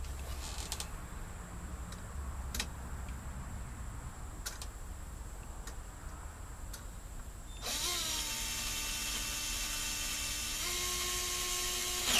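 A few light clicks of handling, then a cordless drill/driver spins up and runs steadily for about four seconds while driving screws into a camper door lock, its pitch stepping up near the end before it stops abruptly.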